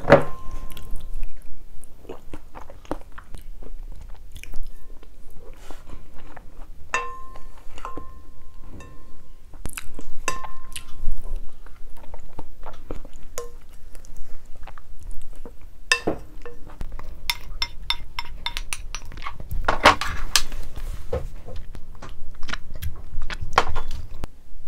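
Close-up chewing and mouth sounds of someone eating abalone rice porridge, with a wooden spoon scraping and clinking against a ceramic bowl, a few clinks ringing briefly.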